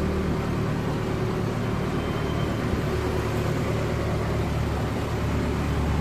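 Excavator's engine running at a steady, even speed, heard as a low, constant hum.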